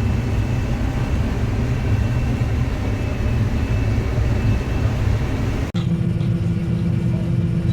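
Combine harvester running steadily at work in corn, with a heavy low engine drone. About six seconds in, the sound breaks off abruptly and resumes as a similar drone with a steady hum over it.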